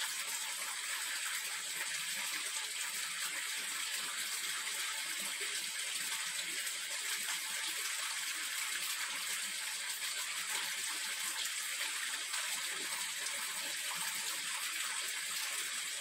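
Steady hiss of running water at an even level throughout, with no breaks.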